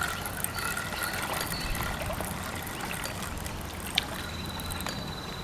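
Steady wash of lake water lapping at the bank. There is a single sharp click about four seconds in, and a thin high tone near the end.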